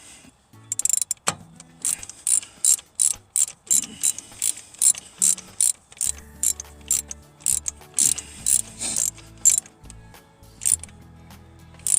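Ratchet wrench clicking in quick, even strokes, about three a second, as it turns a spark plug in the Ford industrial engine. The clicking thins out near the end.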